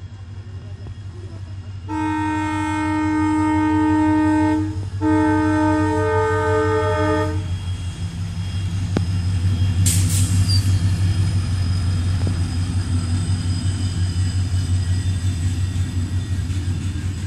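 Twin WDG4 (EMD GT46MAC) diesel locomotives passing close by: the air horn sounds two long blasts, starting about two seconds in with a short break near five seconds, over the steady low drone of their two-stroke V16 diesel engines, which grows louder as the locomotives go past.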